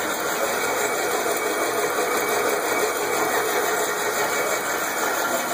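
1953 Ford Golden Jubilee cutaway tractor running, its exposed gears and drivetrain turning with a steady, even mechanical noise.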